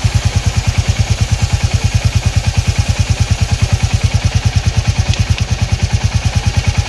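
Motorcycle engine idling close by, a steady low beat of about ten pulses a second.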